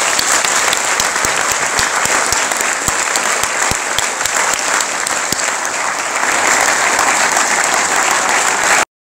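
Audience applauding, a steady clatter of many hands clapping that cuts off suddenly near the end.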